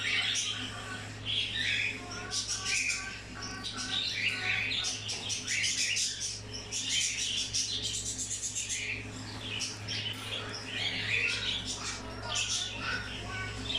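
Conures (small parrots) chattering with many quick, sharp squawks and chirps in rapid succession, over a steady low hum.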